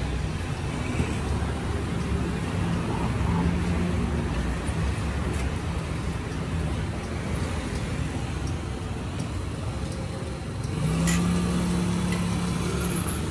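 Road traffic: a steady low rumble of car engines, with one engine's hum getting louder about eleven seconds in.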